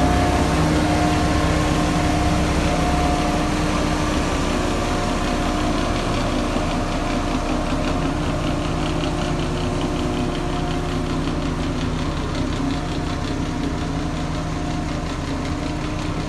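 Engine of heavy paving equipment running steadily at low speed, easing slightly in loudness, with a faint fast ticking joining about halfway through.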